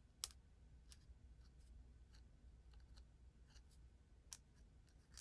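Near silence with a few faint ticks and light scratches from a white Posca paint-marker tip working over textured card.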